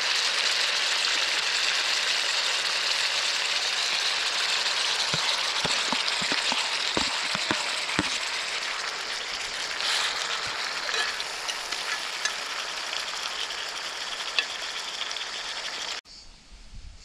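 Chicken and peppers sizzling steadily in a cast-iron skillet over a wood fire, the hiss slowly easing. A few sharp ticks come about five to eight seconds in. The sizzle cuts off suddenly near the end.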